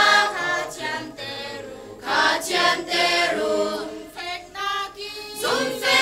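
Mixed choir of women, men and children singing a hymn in Lai (Hakha Chin) unaccompanied, in sung phrases with brief pauses for breath between them.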